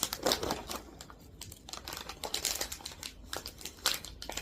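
Plastic snack bag being handled and torn open, a run of irregular crinkling and crackling with sharp rustles.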